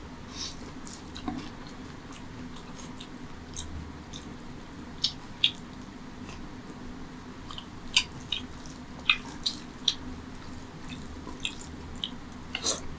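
Close-miked eating of curry-soaked rice by hand: wet chewing with sharp lip smacks and mouth clicks, more frequent in the second half and bunched near the end, over a steady low hum.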